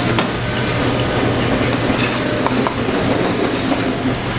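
Steady kitchen background noise with a constant low hum, broken by a few sharp clinks of plates and utensils on the steel counter.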